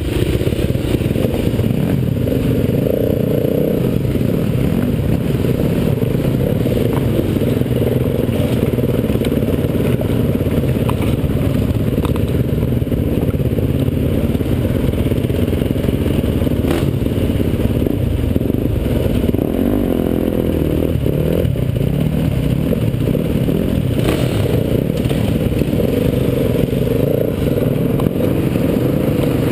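KTM 350 EXC-F single-cylinder four-stroke enduro bike running steadily at low speed over creek-bed rocks, with a few sharp knocks from the stony ground.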